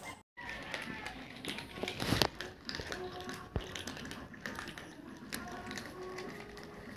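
Several cats crunching dry kibble from a tray together: a dense, uneven patter of small crunches and clicks, with a louder knock about two seconds in.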